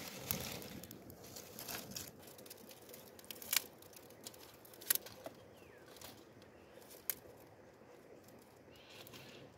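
Dry twigs snapping as they are broken by hand, a few sharp cracks among the soft crackle of a small fire of dry leaves and sticks.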